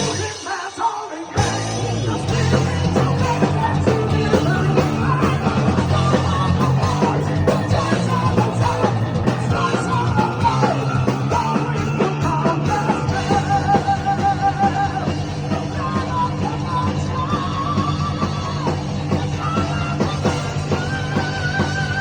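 Heavy metal song: a full rock band with a loud vocal. After a brief thinned-out moment the whole band comes back in about a second and a half in, and later the singer holds long, wavering notes.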